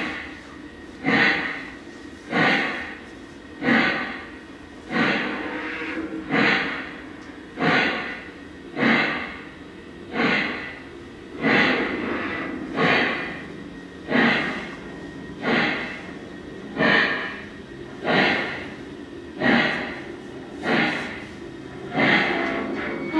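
Lionel Legacy N&W Y6b model steam locomotive's sound system playing slow, even steam exhaust chuffs, about one every second and a quarter.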